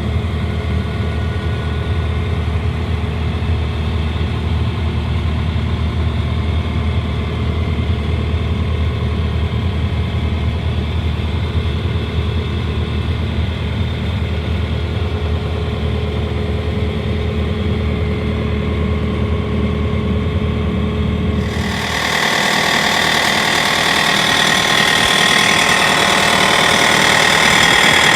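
Bobcat T550 skid steer's diesel engine running steadily at idle; about 22 seconds in the sound changes abruptly to a louder, harsher, higher-pitched running noise.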